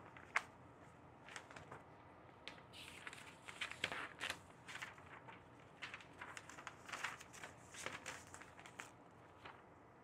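Sheets of paper rustling and crinkling as they are leafed through by hand: faint, irregular crackles.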